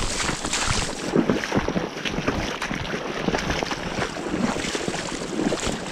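River water splashing and sloshing at close range, with wind buffeting the microphone.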